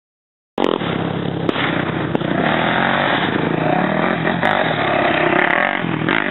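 Dirt bike engine revving hard, its pitch rising and falling as the bike climbs to a jump. It cuts in abruptly about half a second in.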